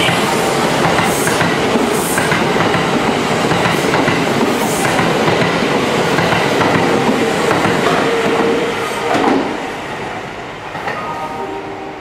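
Kintetsu electric commuter train passing the platform close by, loud and steady, fading after about nine and a half seconds.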